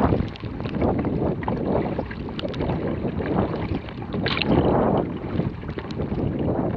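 Choppy water rushing and slapping along a Vajda Supersonic K1 racing kayak's hull as it is paddled, with the paddle blades splashing on each stroke and wind buffeting the microphone. A sharper splash comes about four seconds in.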